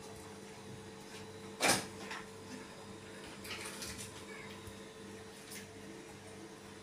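Kitten clambering against a plastic crate and a fabric chair seat: one sharp knock about a second and a half in and a few fainter clicks and scuffs, over a steady low hum.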